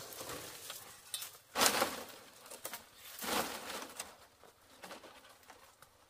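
A bundle of thin dry split bamboo strips rustling and scraping as it is gathered up and hoisted, in several separate bursts, loudest a little under two seconds in.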